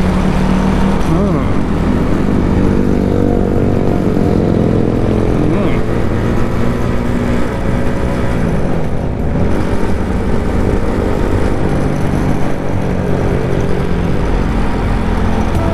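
Benelli Leoncino 250's single-cylinder engine running under way, its pitch rising and falling with the throttle over a steady rush of road and wind noise.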